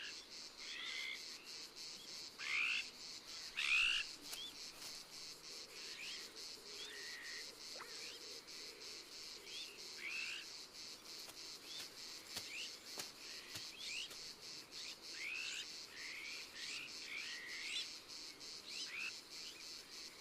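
Small birds calling in short rising and falling whistled notes, the loudest about two and a half and four seconds in, over a steady fast pulsing chirp of insects.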